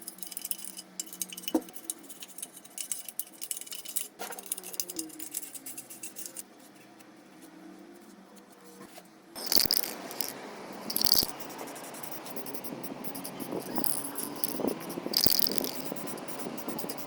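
Small metal parts being handled and worked: scattered clicks, clinks and light scraping. It gets louder about halfway, with a few sharp metallic clinks.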